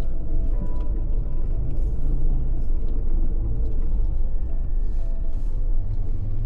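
Background music with held notes over a steady low rumble from a vehicle driving.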